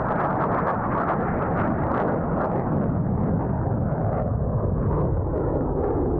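Jet noise from a Blue Angels F/A-18 Hornet's twin engines as it climbs overhead: a loud, steady rumble with a crackling edge.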